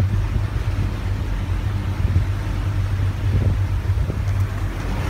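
Motorboat engine running steadily under way, a low drone under the rush of water churning in the wake and wind.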